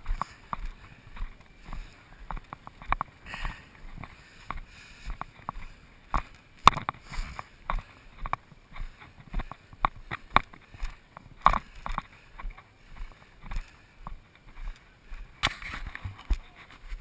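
A runner's footfalls on a gravel and dirt trail heard through a worn GoPro, a few thuds a second, with hard breathing between.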